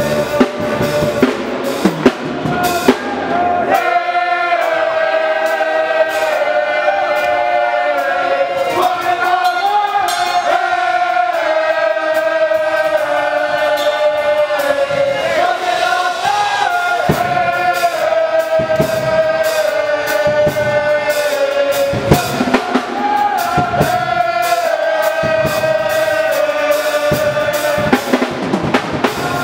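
HBCU pep band playing: brass with drumline. Bass drums and low brass drop out for long stretches, leaving a high melody line, and come back in near the middle and again at the end.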